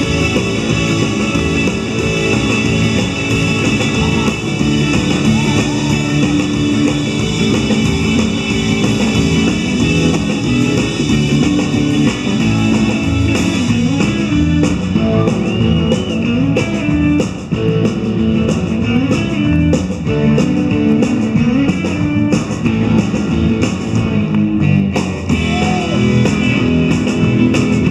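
Instrumental surf rock band playing live: electric guitars and bass over a drum kit. About halfway through, the high cymbal wash thins out and single drum hits come through more clearly.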